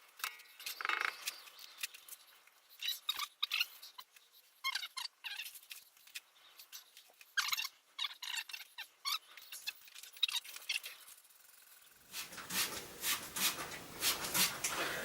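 Bricklaying handling noises: scattered small scrapes and clicks of bricks and mortar being worked, with short pauses between them. About twelve seconds in, the noise becomes fuller and louder, with continuous rustling and knocking.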